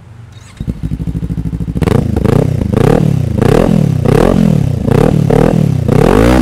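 Kawasaki Ninja 400 parallel-twin engine running through a V-Lane CB1 carbon slip-on muffler with no silencer insert. It idles at first, then from about two seconds in it is revved in repeated quick throttle blips, the pitch rising and falling each time.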